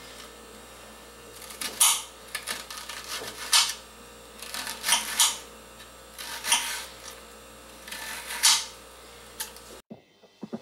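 Kitchen knife cutting an onion on a cutting board: irregular sharp knocks of the blade on the board, about eight of them. Near the end the sound cuts off suddenly and music begins.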